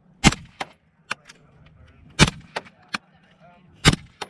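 Three rifle shots, roughly one every two seconds, from a short-barrelled Desert Tech MDRX, with a few fainter sharp clicks and knocks between them.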